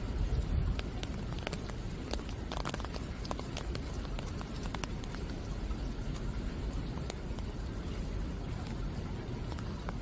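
Rain falling on garden plants: a steady hiss with many irregular sharp ticks of drops striking leaves, over a low steady rumble.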